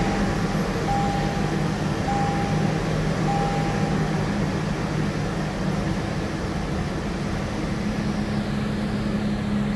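Toyota 4Runner's 4.0-litre V6 idling steadily just after start-up, heard from inside the cabin, run to circulate fresh oil after an oil change. A dashboard warning chime beeps about once a second, four times, then stops about four seconds in.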